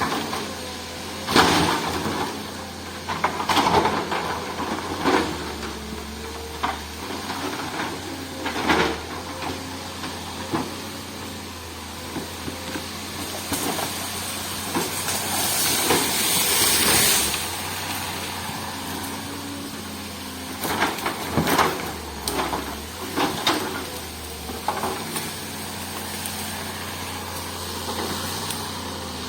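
Earthmoving machine cutting a forest road: its diesel engine runs steadily under repeated knocks and clatters of rock and metal. A rushing hiss of sliding soil and stones rises for a couple of seconds about halfway through.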